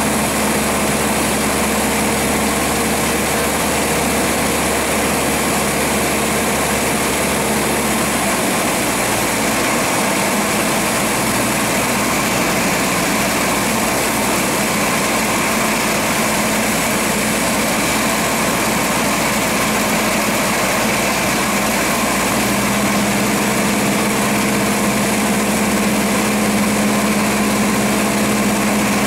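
Cessna 172RG's four-cylinder Lycoming O-360 engine and propeller droning steadily in flight, heard from inside the cabin with rushing wind noise. The engine note shifts slightly about eight seconds in and again about twenty-two seconds in.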